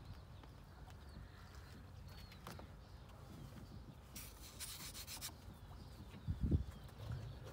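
Quiet outdoor background with a steady low rumble and faint bird chirps. There is a brief scratchy rustle about four seconds in and a dull thump near the end.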